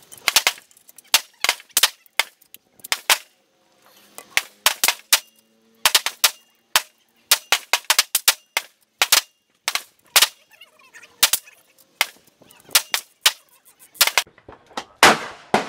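Dozens of sharp cracks in quick, irregular succession, often two to four close together, a few a second. A louder bang with a longer ringing tail comes near the end.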